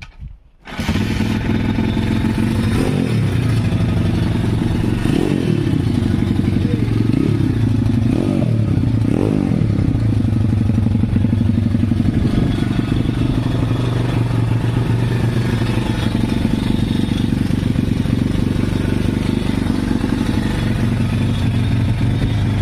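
A vehicle engine starts about a second in and runs at idle, revved briefly about five times and then left idling steadily. A knock or rattle from the engine skid plate runs through it, the source of the knocking.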